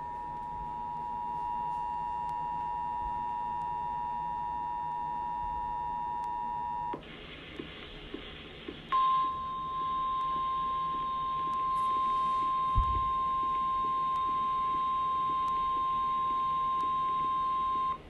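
Emergency Alert System attention signal from a radio broadcast: the two-tone alarm holds steady for about seven seconds, then cuts to a brief stretch of static. The single steady warning tone of NOAA Weather Radio follows, heralding a severe thunderstorm warning.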